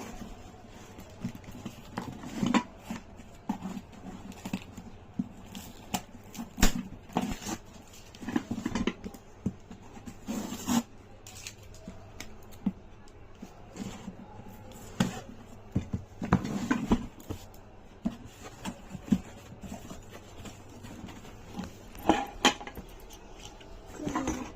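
Irregular clicks, knocks and light clatter of hard objects being handled and set down, with gaps of a second or so between them.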